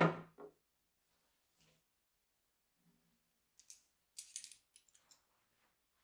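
A ceramic coffee cup set down on a table with a sharp knock, followed by a softer second knock. About three and a half seconds later comes a short cluster of light rustles and clicks as the plate is moved on a cloth napkin.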